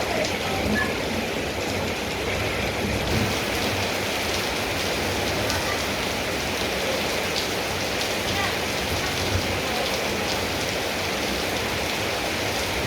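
Steady rain falling, with a few sharp drop hits standing out now and then.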